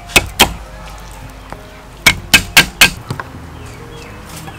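Cleaver chopping raw chicken drumsticks on a wooden cutting board: two sharp chops near the start, then four quick chops about two seconds in.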